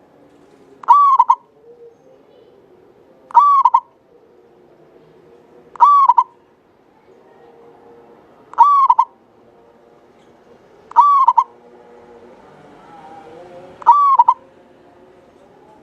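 Zebra dove (Javanese perkutut) singing: six short cooing phrases, about one every two and a half seconds, each a quick cluster of clear notes.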